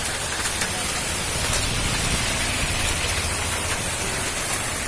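Heavy rain pouring down steadily, with a few faint sharp ticks.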